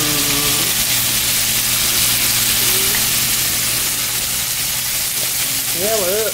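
Hot oil deep-frying scallops in a small saucepan, a steady sizzle of bubbling oil.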